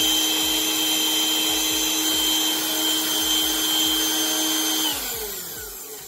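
Small Dirt Devil handheld vacuum cleaner running with a steady high whine, then switched off about five seconds in, its motor winding down and fading.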